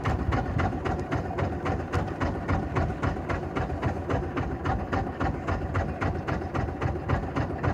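Fishing boat's inboard diesel engine running at idle, a steady rapid chugging of about six beats a second.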